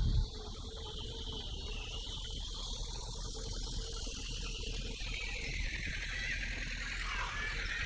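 Heavy diesel engine of an earthmoving machine, most likely the bulldozer, running steadily at low level. It drops sharply from a much louder run about a quarter second in.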